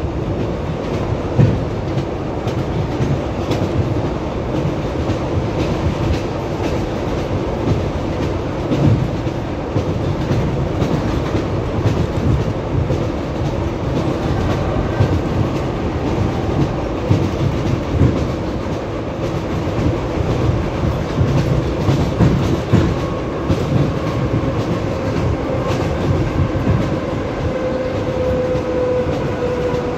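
Wheels of an ED9MK electric multiple unit clattering over rail joints, heard from inside a passenger car, over steady running noise. A faint steady whine comes in during the second half.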